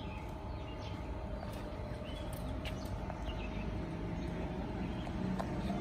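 Transperth electric train rolling slowly into the station platform: a steady whine over a low rumble.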